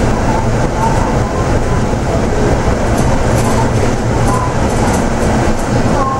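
Yutong ZK6110HGV city bus under way, heard from inside the cabin: its Yuchai YC6G220P-30 six-cylinder diesel engine running steadily with road noise, and light rattles from about halfway through.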